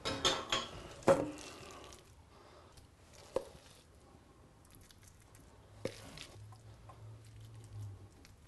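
A few sharp clinks as ceramic ramekins are set down on a gas stove's grate, then soft, quiet scooping and patting of moist bread stuffing with a wooden spoon into the ramekins, with a couple of light knocks of the spoon.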